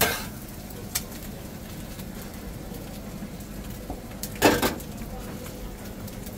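Steel spatula knocking against a griddle and cutting board: a sharp knock at the start, a faint tap about a second in, and a louder short clatter about four and a half seconds in, over a steady background hum.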